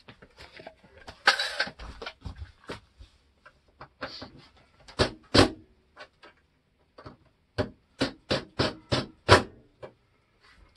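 Knocks and clicks from hands working on a 12-volt refrigerator: a short scraping clatter about a second in, two loud knocks near the middle, then a quick run of about seven knocks near the end.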